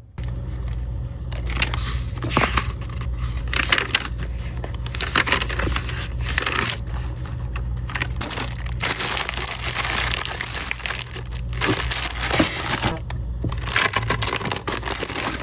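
Packaging being handled and opened: continuous irregular crinkling, rustling and tearing.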